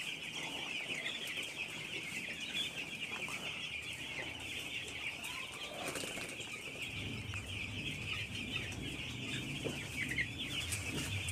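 A shed full of nine- to ten-day-old broiler chicks peeping together, a dense, steady chorus of high overlapping chirps.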